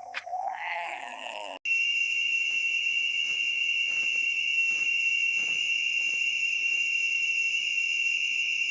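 A steady, high-pitched whistling drone that starts abruptly about a second and a half in and holds one unchanging pitch. Before it there is a fainter, wavering sound.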